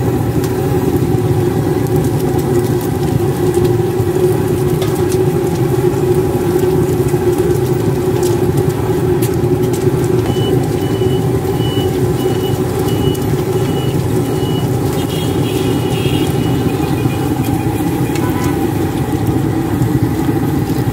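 Steady low roar and sizzle of a street-cart fryer: a pressurized kerosene burner heating a wok of oil while rice-flour cakes (bột chiên) deep-fry in it, with motor traffic running underneath.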